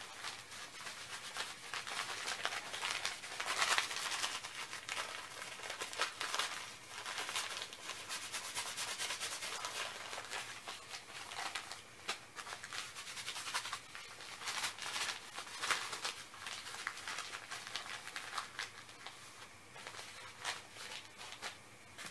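Hands rustling and crinkling paper and plastic packing materials, in irregular spells that come and go with short pauses between.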